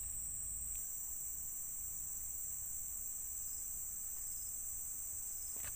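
Steady, high-pitched chorus of insects such as crickets or cicadas, shrilling without a break.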